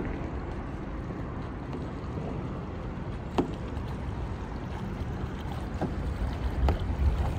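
Kayak moving on a river: a steady rush of water and light wind on the microphone, broken by a few short paddle splashes or knocks, the sharpest about three and a half seconds in.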